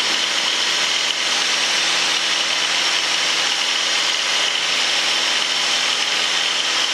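Single-engine Cessna's piston engine and propeller droning steadily at climb power, heard inside the cockpit.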